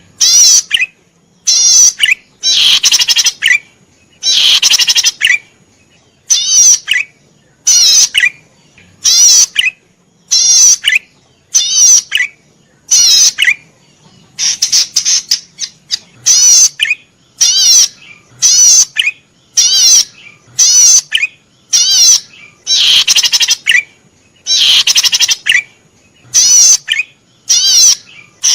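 A cisticola (sold as 'cici padi merah') singing energetically. It gives short, buzzy, rapidly trilled high phrases over and over, about one a second, with brief pauses between.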